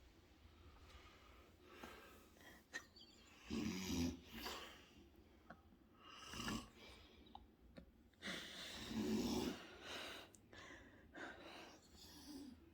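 A man snoring loudly in his sleep, heard from the next bedroom: two big snores, about 3.5 seconds in and again about 8.5 seconds in, with softer snoring breaths between.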